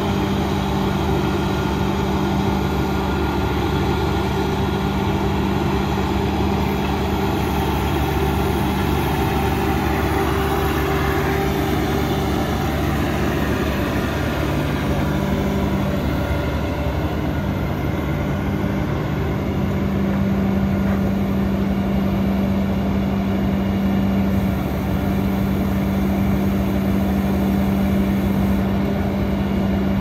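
CLAAS Lexion 760 combine harvester's diesel engine running steadily, a continuous low hum with an even pitch.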